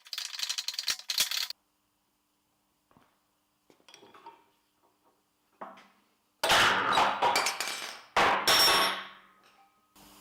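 Metal clanging on a workbench: a quick run of small clinks, then two loud clattering clangs near the end, the second ringing on with a high tone, as steel lathe tailstock parts are knocked and handled.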